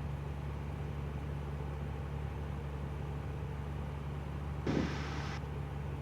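Steady drone of a 1965 Cessna 172G's six-cylinder Continental O-300 engine in flight, with a brief burst of hiss about five seconds in.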